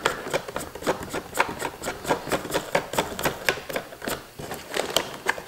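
Small plastic clicks and rubbing in a quick, irregular run, from hands working a 12-volt accessory socket into the plastic dash panel of a Ski-Doo snowmobile.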